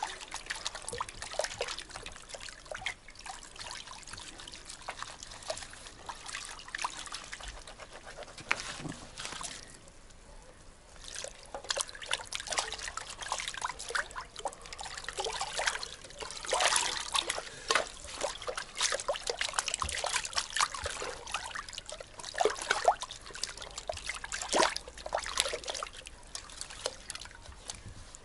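Water trickling, dripping and sloshing in a plastic basin as fish are washed in it by hand. There is a short lull about ten seconds in, and more splashing after it.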